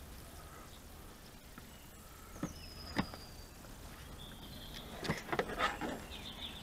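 Sharp plastic clicks and taps as a windscreen washer jet is handled and pressed into the car's plastic scuttle panel: two single clicks, then a quick run of clicks and rattles near the end.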